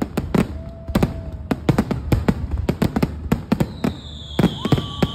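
Fireworks going off: a rapid, uneven run of sharp bangs and crackles over a low rumble, with a steady whistle about a second in and higher whistles near the end.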